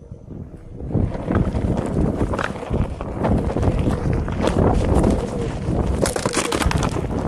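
Wind buffeting the microphone of a camera riding low on a one-wheel electric board, with the board's tyre rolling and crackling over a dirt trail. It gets much louder about a second in and stays loud.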